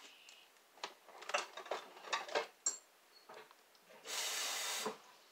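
A few light clicks and knocks of things being handled in the kitchen, then a steady hiss that lasts about a second, four seconds in.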